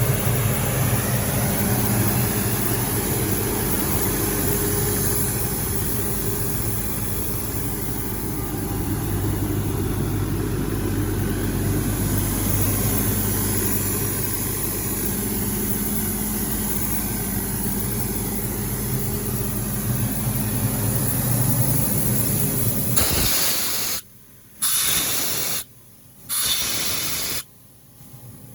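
Diesel engine of a Doosan 250 CFM towable air compressor running steadily. About 23 seconds in, the engine sound stops and three short bursts of air hiss follow, each about a second long.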